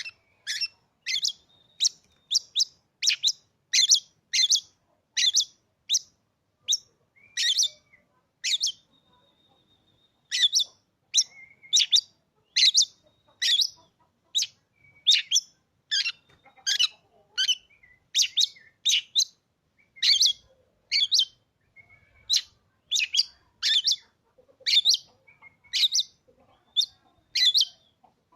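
Oriental magpie-robin (kacer) calling in a long series of short, sharp, high-pitched notes, about two a second, broken once about nine seconds in by a thin held whistle.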